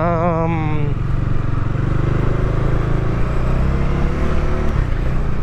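Bajaj Dominar 400's single-cylinder engine running steadily under way, with road and wind noise, picked up by a lavalier mic inside the rider's helmet cheek pad.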